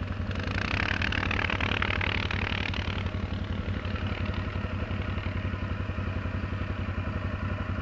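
An ATV engine idling with an even low pulsing beat. A rushing noise rises over it for a couple of seconds near the start.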